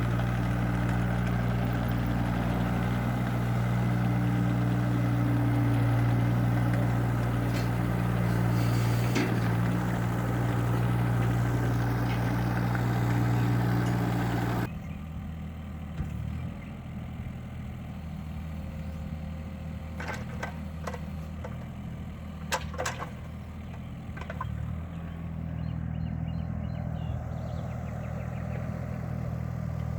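Kubota mini excavator's diesel engine running steadily with a low hum. About halfway through the sound drops suddenly to a quieter engine hum, with a few sharp clanks a little later.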